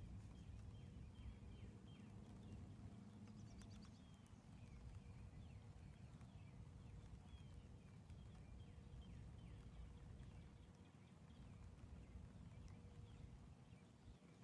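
Faint outdoor ambience: small birds chirping over and over, each call a short falling note, over a low steady rumble.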